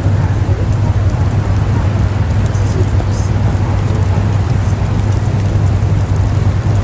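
Storm wind buffeting the microphone: a loud, steady rushing with a heavy low rumble.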